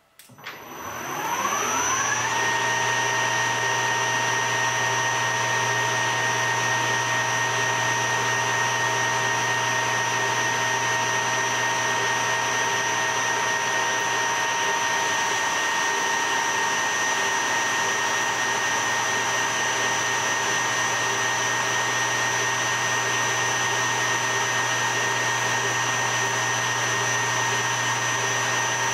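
Metal lathe switched on: a click, then the spindle's whine rises over about two seconds as the chuck spins up, and settles into a steady whine with a low hum.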